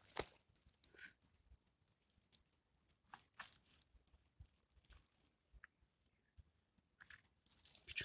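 Quiet, scattered crunches and crackles of dry pine needles and twigs being disturbed, with a small cluster of them about three seconds in and near silence between.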